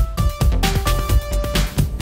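Electronic background music with a steady beat and held synth notes.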